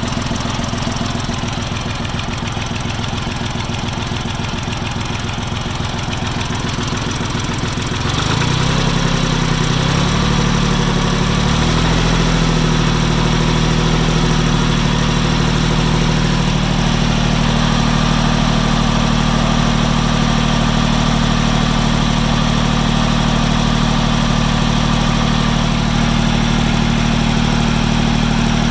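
Farm Pro 2425 tractor's diesel engine idling, then throttled up about eight seconds in, its pitch climbing and settling at a steady higher speed. It is running from a cold start, before the knock that develops once it warms up has appeared.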